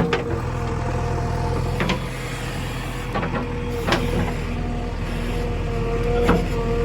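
Heavy diesel machinery engine running steadily with a steady whine over its drone, and a few sharp metallic knocks.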